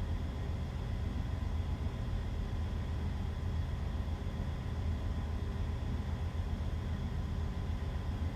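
Steady low machinery drone with a few faint constant tones and a hiss above it, unchanging throughout: the background running of a ship's engine-room machinery.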